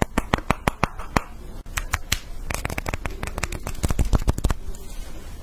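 Hard, frost-coated fruits clicked and tapped against each other in the hands: a quick series of sharp clicks, then a denser cluster of clicks about two and a half seconds in.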